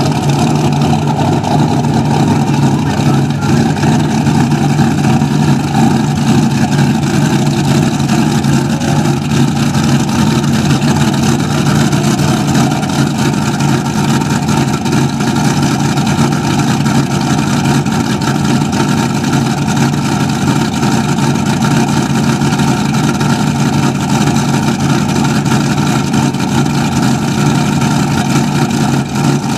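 Mud racing truck's engine idling loudly and steadily, with no big revs.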